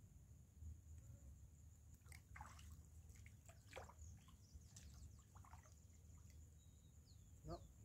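Faint small splashes and drips of water, a scatter of light sloshes and ticks from the feet of a person wading barefoot in shallow river water, the last one near the end a little louder.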